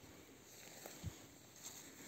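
Near silence: faint outdoor background with one soft low thump about a second in.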